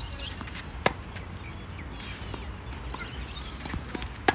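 Tennis racquet strikes on a ball: two sharp pops about three and a half seconds apart, the second the loudest, with fainter ticks of distant shots and bounces between.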